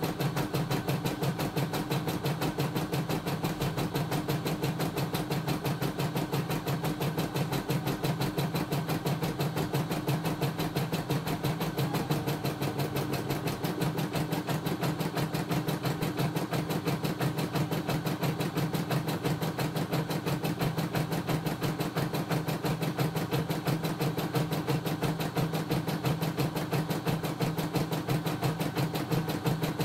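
CNY E960 computerized embroidery machine stitching a design: the needle bar running at a steady, rapid, even rhythm.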